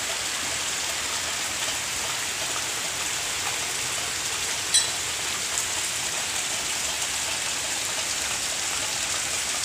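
Heavy rain falling steadily in a dense, even hiss, with one brief tick about five seconds in.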